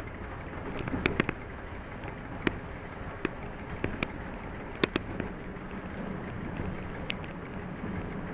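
Class 731 diesel locomotive heard from its cab while banking a heavy freight train: a steady running rumble broken by irregular sharp clicks and knocks, with a low engine hum growing clearer about halfway through.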